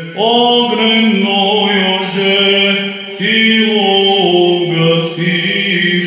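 Male voices chanting an Orthodox katavasia in Church Slavonic, in znamenny chant, with long held notes and a new phrase beginning about three seconds in.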